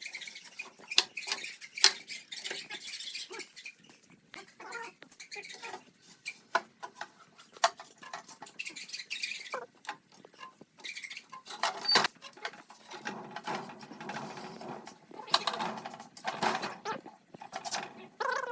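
Light, irregular clicks, taps and scraping from hands working wooden parts, busier in the last few seconds.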